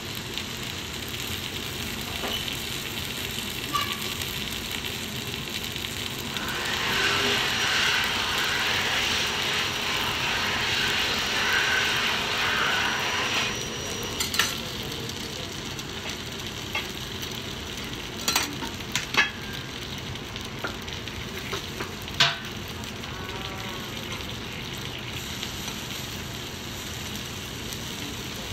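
Okonomiyaki sizzling on a hot iron teppan griddle, a steady frying hiss that grows louder for several seconds in the middle. A few sharp clicks and taps stand out in the second half.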